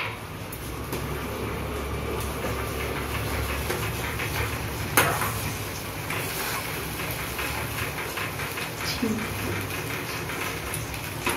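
A spatula stirring and scraping a thick masala paste in a steel kadai over a lit gas burner, against a steady low rumble, with one sharp knock of the spatula on the pan about five seconds in.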